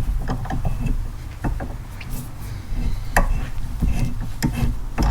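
Hand tap being turned through a drilled hole in quarter-inch steel, cutting threads: irregular small crunching clicks as chips break, with scraping between them, over a low steady hum.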